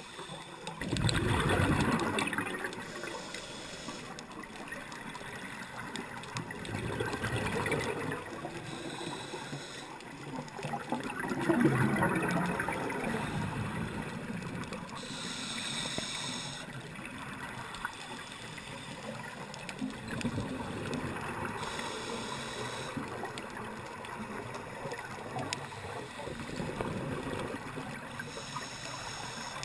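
Scuba regulator breathing heard underwater through a GoPro's waterproof housing: gurgling bursts of exhaled bubbles roughly every five or six seconds, with a short hiss of inhalation between them.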